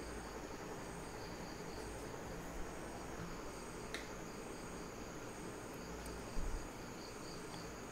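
Insects chirping steadily in a high, evenly pulsing drone, with one faint sharp click about four seconds in.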